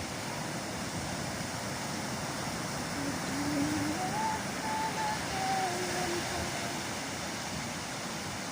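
Ocean surf rushing steadily, mixed with wind on the microphone. A faint distant voice is heard about halfway through.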